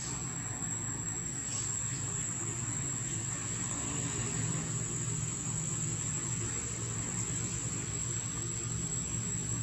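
A steady high-pitched insect drone, one unbroken tone, over a low steady hum.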